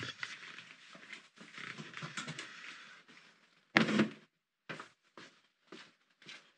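Cardboard box and packaging being handled, rustling and scraping, then one sharp knock about four seconds in. After it come short footsteps on a concrete walk, about two a second.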